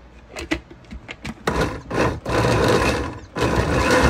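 A few clicks from the blender lid being fitted, then an electric countertop blender's motor starting about a second and a half in, running in a couple of short pulses and then steadily, puréeing tomatillos, chiles and water into salsa.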